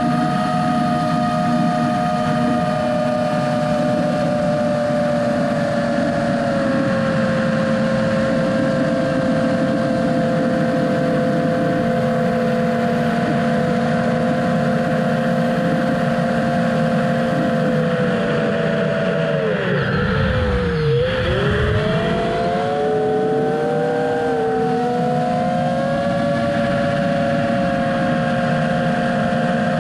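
FPV multirotor drone's motors and propellers whining steadily, heard from the onboard camera as several close tones over a low buzz. About two-thirds through, the pitch drops sharply for a second or two as the throttle is cut, then rises again with the motors' separate tones wavering apart as it levels out lower down.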